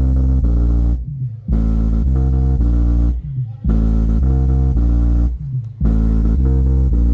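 Bass-heavy music with a plucked bass line played loud through an Ahuja N18-SW1800 1800-watt neodymium speaker during a sound test. The music drops out briefly about every two seconds, three times.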